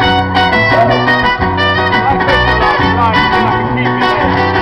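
Live band playing an upbeat instrumental passage through a stage PA, with a rhythmic bass line, steady percussion, strummed guitar and a gliding lead melody on top.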